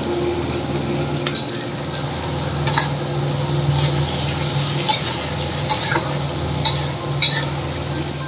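Duck pieces sizzling in a wok as they are stir-fried with a metal spatula, the spatula scraping and knocking against the wok about once a second. A steady low hum runs underneath.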